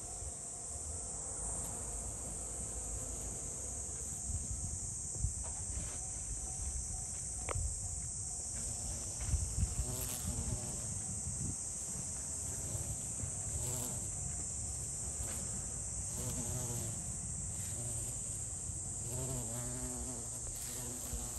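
Large bees buzzing in flight among the flowers, their wavering buzz rising and fading several times as they come near the microphone. Underneath runs a steady high-pitched insect chorus.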